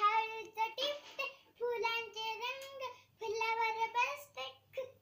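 A young girl singing a Marathi children's poem without accompaniment, in held, tuneful phrases with short breaths between them.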